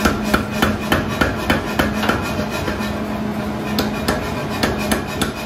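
Nazel air power hammer striking a hot steel bar in a run of quick blows, about three a second, thinning out over the last couple of seconds, over the steady hum of the hammer's motor.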